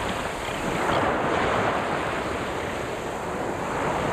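Steady rushing noise of wind and surf, swelling about a second in.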